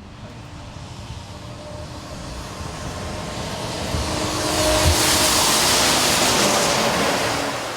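A vehicle passing by: a noisy rush that builds for several seconds, peaks, then fades away.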